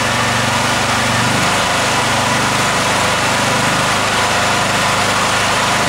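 Honda EM4500S generator engine running steadily with no load, its speed raised a little partway through as the governor's speed screw is turned out, bringing the output from about 48 Hz up to about 52 Hz.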